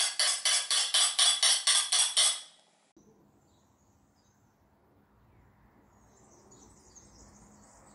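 Eggs being whisked in a glass bowl: a utensil clinks rapidly and evenly against the glass, about five strokes a second, and stops abruptly about two and a half seconds in. Then faint room tone with a few faint bird chirps.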